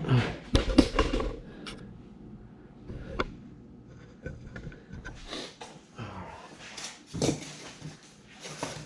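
Knocks and rustling from handling the foam kayak hull and its foam filler pieces: a few knocks in the first second and a half, a single click, then quieter scraping and shuffling with another knock about seven seconds in.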